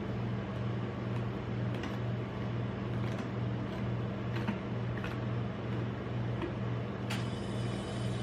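Steady low hum of a rolled-ice-cream machine's cold plate, its refrigeration unit running, with a metal spatula scraping and ticking against the frozen steel plate a handful of times as it smooths the sheet of Nutella ice cream.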